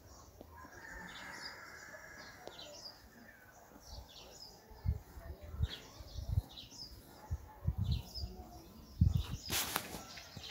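Small birds chirping, with short high chirps repeating about once a second. Dull low thumps come in about halfway through, and a short loud rustle follows near the end.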